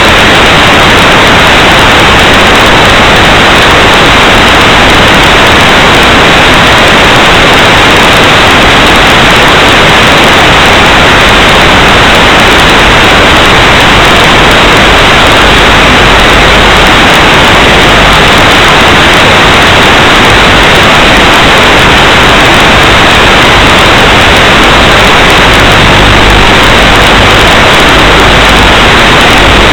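Loud, steady hiss of static, the empty audio channel of an analog FPV video receiver's recording, unchanging throughout.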